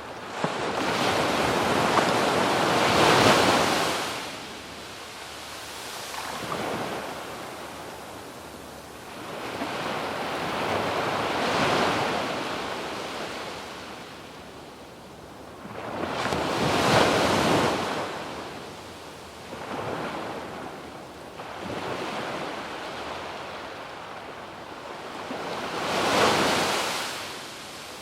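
Ocean waves breaking and washing up a sandy beach: surges of surf that swell and fade every few seconds, the biggest about 3, 12, 17 and 26 seconds in.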